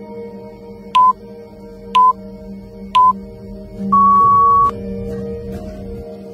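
Electronic countdown timer beeping: three short beeps a second apart, then one longer, slightly higher beep as the count reaches zero, signalling the end of the exercise interval. Soft background music runs underneath.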